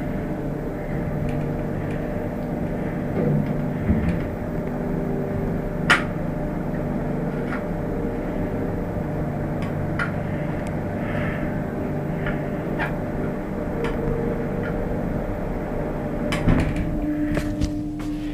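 Lift running: a steady machine hum with a low rumble and a few sharp clicks. Near the end a new steady tone comes in, along with louder knocks.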